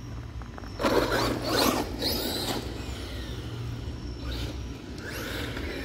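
Traxxas Maxx V2 RC monster truck driving on asphalt: a burst of tyres scrabbling on grit with a brief rising electric-motor whine about a second in, and another tyre burst near the end.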